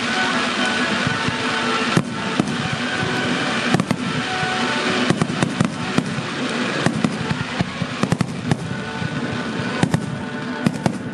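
Fireworks going off close by over music. A sharp bang comes about two seconds in, followed by more bangs and crackling that grow denser toward the end.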